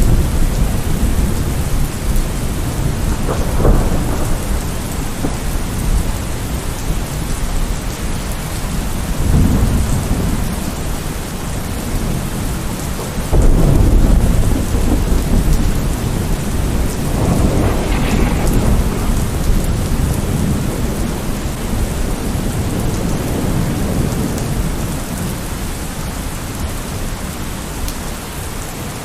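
Rain falling steadily in a thunderstorm, with several low rolls of thunder; the loudest comes in suddenly about thirteen seconds in.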